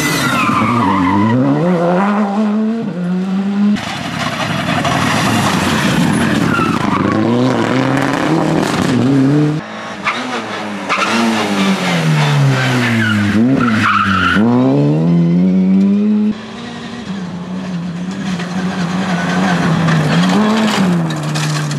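Rally cars at full attack, a Škoda Fabia R5 and then Opel Adam Cup cars: engines revving up and dropping back again and again through gear changes and lifts, over several passes cut together. Tyre and gravel noise runs under the engines.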